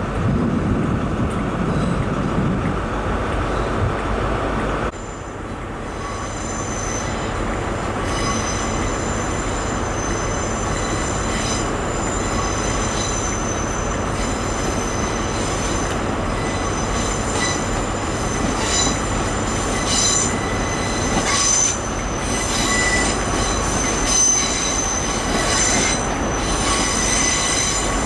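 Train wheels squealing against the rails as a train runs through the station: several high, steady squeals that come and go over the rumble of the train. The sound changes abruptly about five seconds in, and the squeal builds from there.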